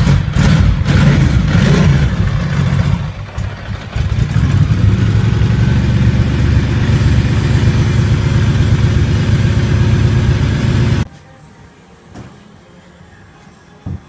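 2002 Ducati 620 i.e.'s air-cooled L-twin engine running in a test run, dipping for about a second around three seconds in, then stopping abruptly about eleven seconds in. A faint click follows near the end.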